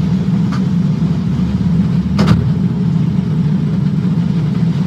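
A steady low droning hum, with a single short knock about two seconds in.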